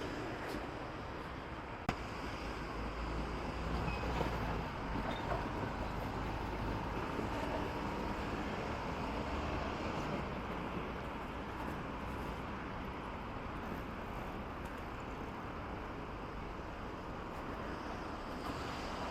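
Steady outdoor traffic rumble, the low drone of passing vehicles, with one sharp click about two seconds in.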